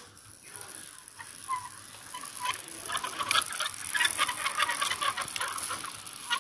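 Cheap plastic toy robot car pushed by hand over rough concrete, its plastic wheels and loose body parts rattling and clicking rapidly against the gritty surface. The clicking starts about a second and a half in and grows louder and denser.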